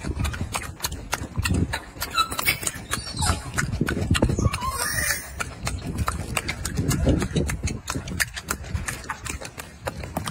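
Golden snub-nosed monkey eating a mandarin orange close to the microphone: rapid wet clicks and smacks of chewing, with low thumps.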